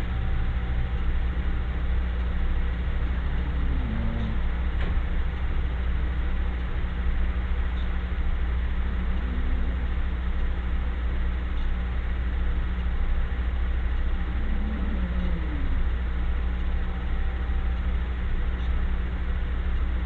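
A steady low droning hum, with a faint snore sliding down in pitch about every five to six seconds.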